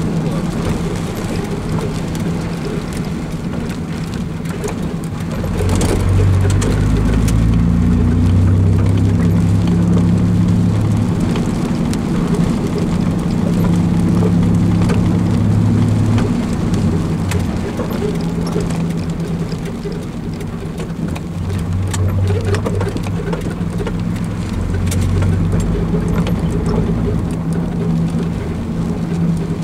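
Car engine and tyres on a wet road heard from inside the cabin, the engine note rising and falling as the car drives on, with light rain ticking on the windshield.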